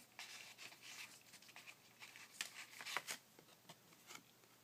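Faint rustling and light clicks of a deck of playing cards in its paper box being handled, with a few sharper ticks about two and a half and three seconds in.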